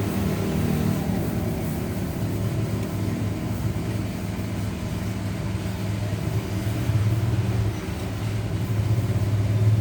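Road traffic: a vehicle engine running with a steady low hum that swells a little near the end.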